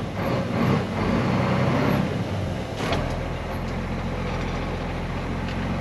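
International semi truck's diesel engine under throttle as the truck spins its wheels trying to pull out of the soft field. It is louder for the first few seconds, then eases to a steady run.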